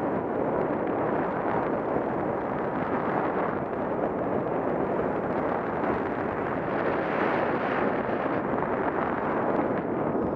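Steady wind noise buffeting an action camera's microphone, a constant rushing hiss with no engine or voice in it.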